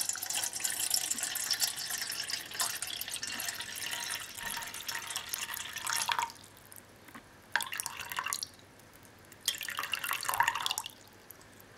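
Cold tap water poured from a jug into a saucepan, splashing steadily for about six seconds, then stopping and coming again as a brief splash and a second short pour while the amount is topped up to a measured 400 ml.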